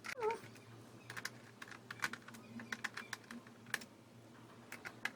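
Irregular small clicks and taps of a screwdriver and screws against the plastic underside of a Dell Inspiron 15 3000 laptop as its screws are taken out. A short squeak falls in pitch near the start.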